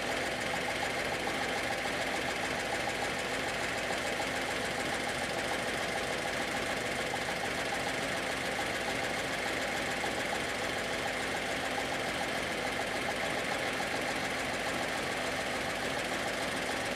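Chevrolet pickup truck's engine idling steadily, as it ran before being worked on.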